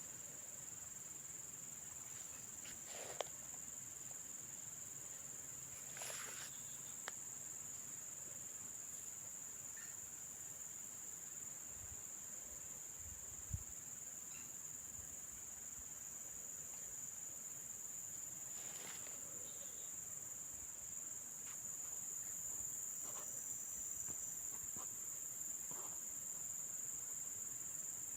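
Insects droning steadily at one high pitch, with a few brief knocks and rustles.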